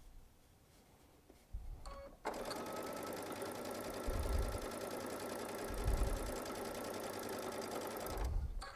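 Baby Lock Solaris sewing machine stitching a straight piecing seam through quilt fabric. It is quiet at first, starts about two seconds in, runs at a steady speed for about six seconds, then stops near the end.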